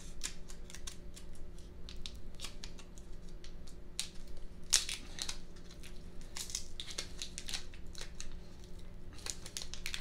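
Sticky rubber tire-repair plug strip being pulled apart and peeled by hand: a run of small crackling, tearing clicks, the sharpest about five seconds in, over a faint steady hum.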